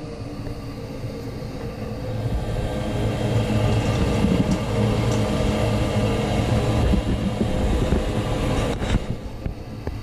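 Amana 97% gas furnace's draft inducer motor starting up on a call for heat, the first stage of the ignition sequence. It runs with a steady hum and rumble, growing louder over the first few seconds and easing a little near the end.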